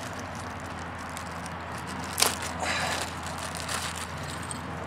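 Plastic packaging of a carburetor rebuild kit crinkling as it is handled and opened, with a sharp crackle about two seconds in.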